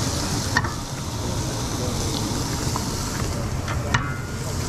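Chicken pieces sizzling steadily as they fry in pans, with two sharp clicks, one shortly after the start and one near the end.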